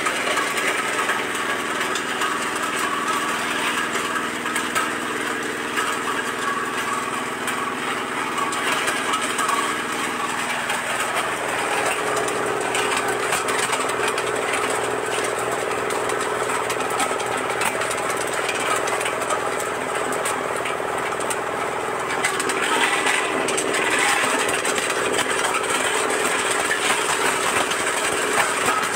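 Areca nut cracking machine driven by its 8 hp diesel engine, running steadily while whole dried areca nuts are fed into the hopper; the engine's note shifts slightly about eleven seconds in.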